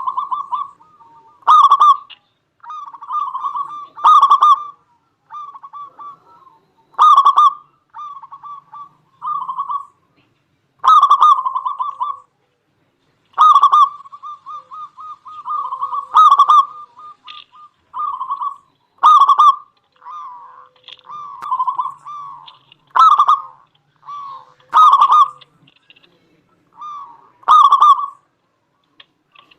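Local zebra dove (perkutut) calling without pause: loud, clipped coo notes come every two to three seconds, with quick rolling runs of softer coos between them.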